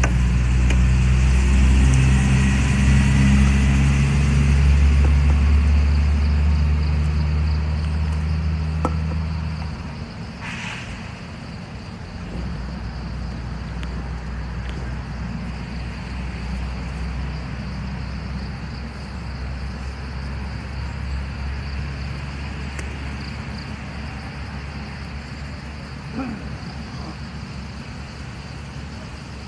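A nearby engine running with a low, steady drone, loud for about the first ten seconds and then dropping to a quieter hum that continues.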